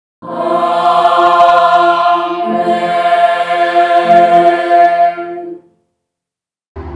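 Unaccompanied choir singing a long, held "Amen" in two sustained chords, which cuts off about five and a half seconds in. Just before the end a low, steady ambient-music drone begins.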